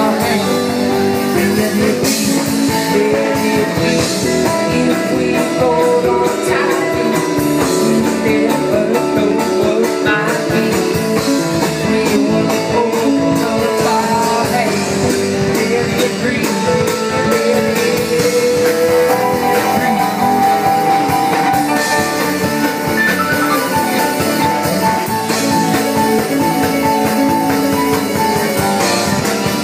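Live band music: guitar over a drum kit beat, playing steadily.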